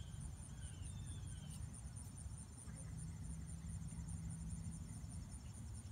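Backyard ambience: insects trilling in a steady, evenly pulsing high-pitched chorus over a low rumble.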